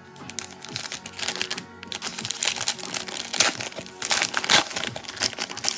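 Foil wrapper of a trading-card pack being torn open and crumpled by gloved hands, a dense irregular crinkling and crackling that grows louder after the first couple of seconds.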